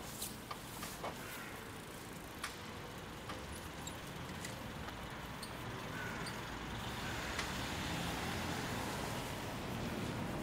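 City street traffic, with a car driving by that grows louder through the second half. Scattered light clicks sound in the first half.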